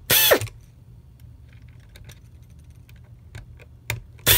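Hand screwdriver turning Torx screws into the plastic Dyson V8 cyclone housing: small scattered clicks and ticks of the bit and the plastic. A brief loud swish that falls in pitch comes just after the start and again at the end.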